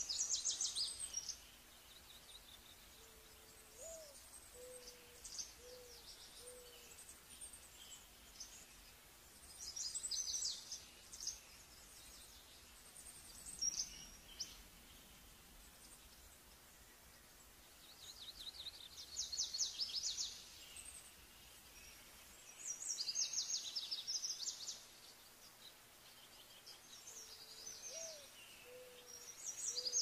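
Small songbirds singing in short, high, rapid trilled phrases, about six bursts spaced a few seconds apart. Twice, a low series of five short hoots from another bird sounds underneath, the first note rising and the rest level.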